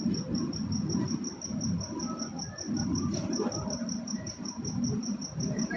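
A cricket chirping steadily, a high-pitched pulse about five times a second, over a low, uneven rumble.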